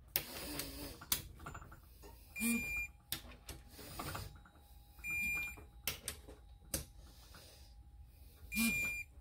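Digital torque wrench beeping three times, about three seconds apart, each short beep the signal that a case bolt has reached its set torque of 20 foot-pounds. Short clicks of the wrench and bolts come between the beeps.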